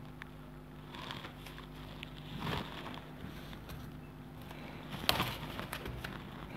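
Faint handling noise of hands working spliced audio-cable wires, with short rustles about two and a half and five seconds in, over a steady low hum.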